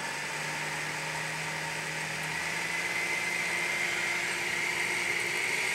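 High-speed blender running as it purees a thick cashew and coconut-milk sauce, a steady motor whine that rises slightly in pitch about two seconds in.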